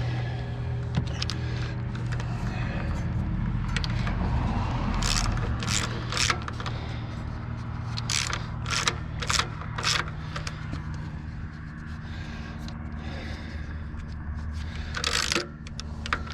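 Hand wrench turning the drive belt tensioner's adjusting bolt on an engine, giving a run of sharp metallic clicks about five to ten seconds in and a few more near the end, over a steady low hum.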